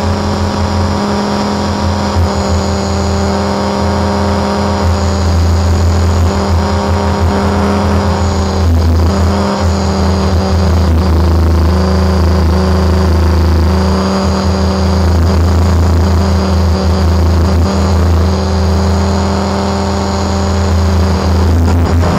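Align T-Rex 550 RC helicopter in flight, heard from its own onboard camera: the rotor and drive run as a steady hum and high whine, with small shifts in pitch as it manoeuvres.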